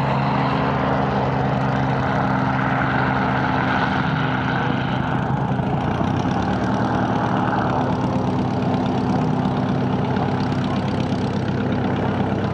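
Light aircraft engine running steadily at low power, with its hiss easing a little about six to eight seconds in.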